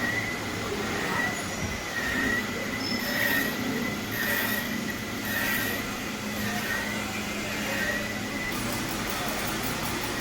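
Metal lathe turning a workpiece: a steady high-pitched squeal from the cutting tool that dips slightly about once a second, over the hum of the lathe's motor, with brief bursts of hiss. The squeal stops near the end.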